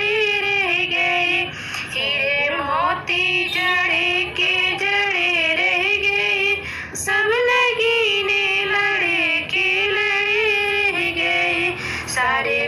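A woman singing a Hindi devotional song (bhajan), her melody bending and wavering through long phrases, broken by short pauses about 2 and 7 seconds in.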